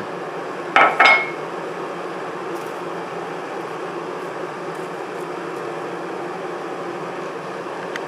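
Ceramic mug set down on a granite countertop: a quick double clink with a brief ring about a second in, then a steady background hiss.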